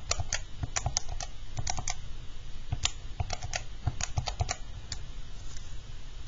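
Keys of a Texas Instruments TI-84 Plus graphing calculator being pressed: a quick, uneven string of short plastic clicks that stops about four and a half seconds in.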